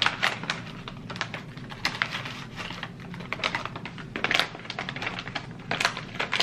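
A foil pouch and a plastic bag crinkling, with crinkle-paper shred rustling as it is stuffed into the bag: a quick, irregular run of crackles.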